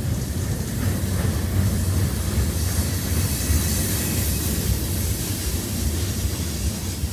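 A CSX freight train's last cars, a lumber-loaded flatcar and a tank car, rolling by: a steady noise of steel wheels running on the rails.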